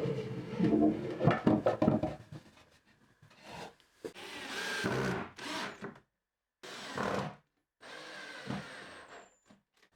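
Wooden parts rubbing and sliding against each other in several separate bursts, loudest in the first two seconds.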